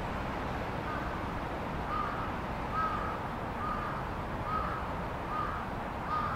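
A crow cawing, a run of about seven short caws a little under a second apart, over a steady hum of distant traffic.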